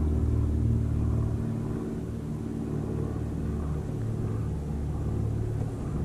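Low, steady drone of an incoming car ferry's diesel engines: a deep hum with rumble underneath. It eases a little about a second and a half in.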